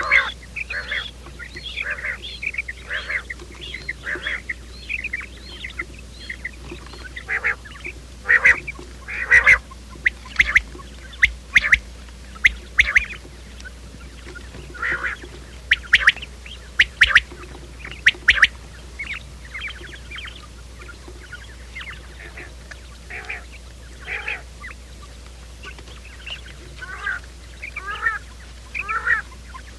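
Quail calling: many short, chirping calls in irregular runs, some sharper and louder in clusters near the middle. This is a lure recording used to draw quail into traps, with a steady low hum underneath.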